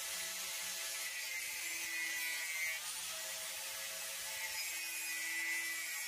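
Electric angle grinder running against the welded joints of a square steel tube frame, a continuous harsh grinding hiss with the motor note shifting as the disc bears on the metal.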